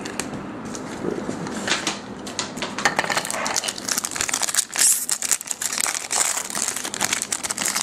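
Foil wrapper of a baseball-card pack crinkling and crackling as it is handled and torn open, with many small irregular clicks.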